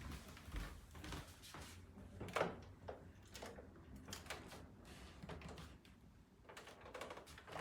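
Faint, scattered soft knocks and clicks, like handling noise.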